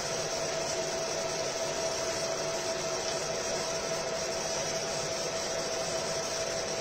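Fiber laser marking machine running while engraving: a steady fan-like whirr with one constant hum, unchanging throughout.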